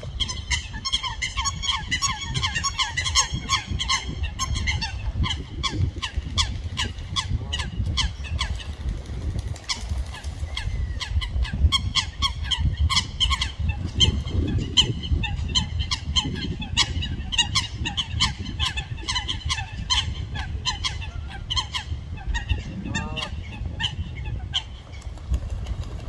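Eurasian coots calling: a rapid, continuous series of short, sharp honking calls, several a second, given during a fight between rival coots.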